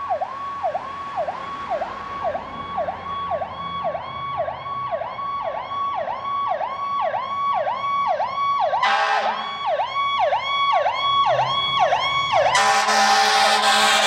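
Ambulance siren in a fast rising-and-falling yelp, about two sweeps a second, growing louder as the ambulance approaches. About nine seconds in there is a short air horn blast, and near the end the air horns sound continuously over the siren, the loudest part.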